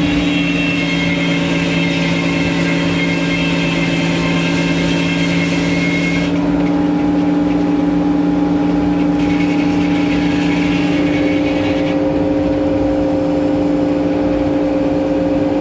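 Sawmill's engine running steadily, with a high hiss over it that cuts off about six seconds in.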